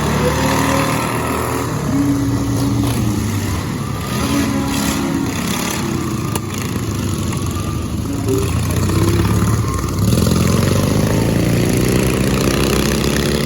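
Racing lawn mower engines running hard, their pitch climbing and dropping as they rev, with more than one engine heard at once. Louder and rising from about ten seconds in.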